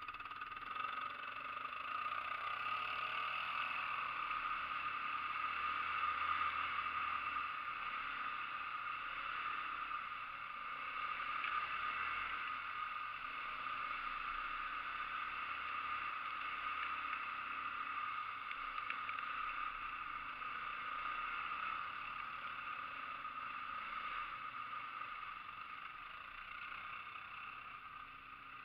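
ATV engines running steadily throughout, the sound swelling and easing a little.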